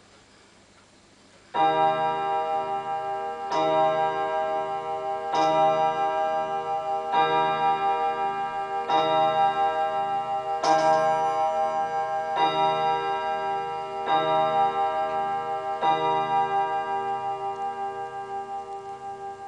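Gustav Becker wall clock striking the hour: nine strikes, about one every two seconds, each ringing on and overlapping the next, then dying away slowly after the last.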